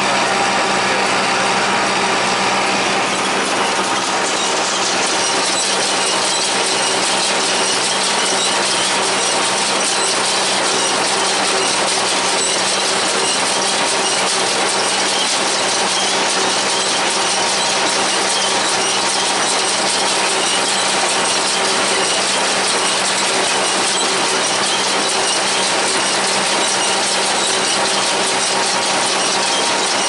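John Deere 336 small square baler working behind a John Deere 3020 tractor: a steady, loud mechanical clatter of the baler's pickup and drive over the tractor engine's steady hum.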